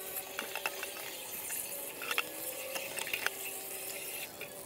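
Water spraying from a flush wand inside an RV water heater tank and pouring out of the anode-rod opening, with scattered clicks and rattles as the wand works the calcium and lime deposits loose.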